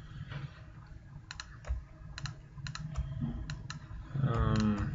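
Scattered keystrokes on a computer keyboard, a few separate clicks at uneven intervals, with a short hummed vocal sound near the end.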